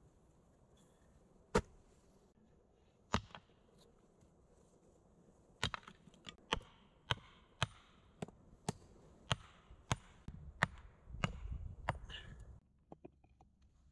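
Hatchet striking wood: two single knocks, then a steady run of about two strikes a second from about six seconds in, with a low rumble underneath near the end.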